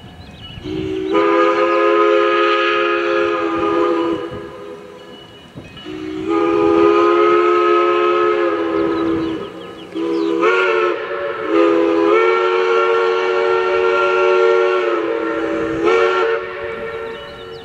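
A train's multi-chime air horn sounding four chord blasts, long, long, short, long: the standard signal sounded for a grade crossing.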